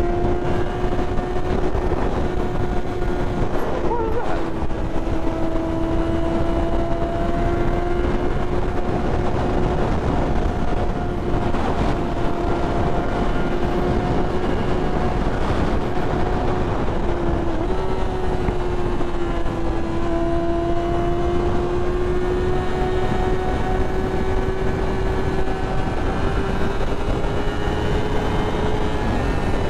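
2012 Yamaha R6's inline-four engine running at steady high revs, its pitch holding nearly constant with small dips and falling away near the end as the throttle eases, under a constant rush of wind noise.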